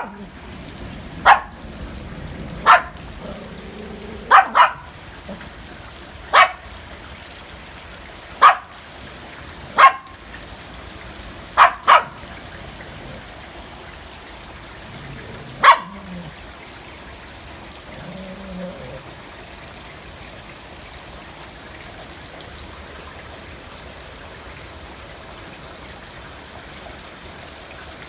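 A small dog barking, single sharp barks every second or two, ten in all over the first sixteen seconds. Steady rain falls on the pool and concrete patio throughout, and after the last bark only the rain goes on.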